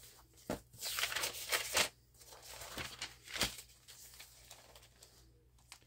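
Paper rustling as notebook pages are leafed through, with a few light clicks and taps.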